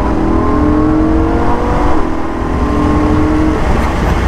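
Lamborghini Huracan's 5.2-litre V10 accelerating hard, heard from inside the cabin: the engine note rises, shifts up about two seconds in, climbs again, then eases off near the end over a steady low road rumble.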